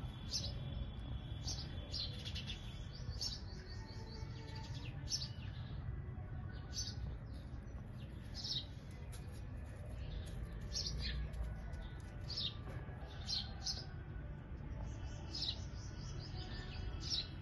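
Small birds chirping: short, high chirps repeated every second or so, over a low steady rumble.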